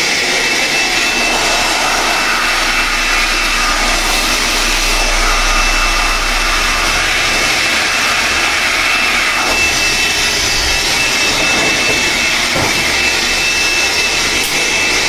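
Bosch GBL 18V-120 cordless blower running steadily at its second, higher speed: a loud rush of air with a steady high fan whine.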